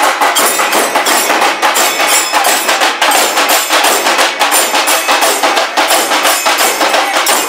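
A procession drum band of hand-held frame drums beaten together in a fast, even rhythm, loud and sharp-edged throughout.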